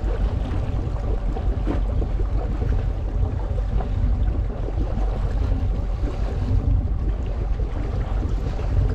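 Steady low rumble of a fishing boat under way at trolling speed, with water washing at the stern and wind.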